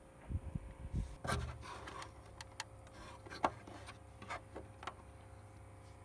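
Light plastic clicks and rubbing from a small wedge bulb being pulled from its socket and a twist-lock bulb socket being worked out of a scooter's front light housing: scattered ticks, the sharpest about three and a half seconds in.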